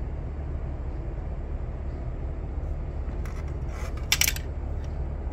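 Plastic model-kit parts sprues being handled, giving a few brief clicks and rustles about three to four seconds in, over a steady low room hum.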